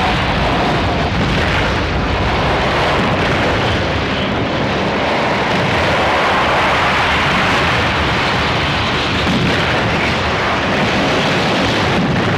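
Loud, steady, dense rush of noise from a dramatic sound-effects track of cosmic upheaval, storm and eruption, without pause or distinct blasts.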